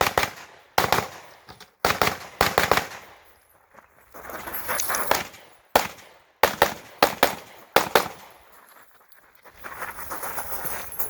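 Gunshots fired in quick strings of two to six, with short pauses between the strings, as a shooter runs a competition stage.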